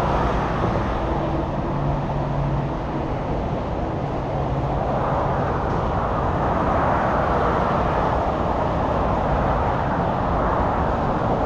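Road traffic noise: a steady hiss of tyres and engines, which dips slightly a few seconds in and then swells as a vehicle draws closer.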